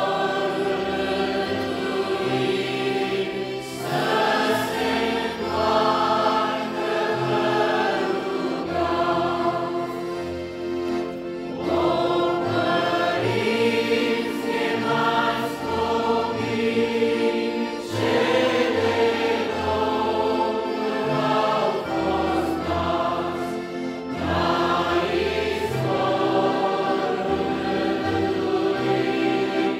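A congregation of men and women singing a hymn together, accompanied by accordions, in long held phrases with short breaks between them.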